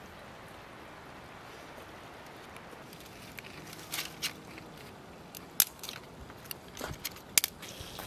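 Wood fire crackling under a clay cooking pot: irregular sharp pops and cracks start about three seconds in over a steady low hiss, the two loudest near the middle and near the end.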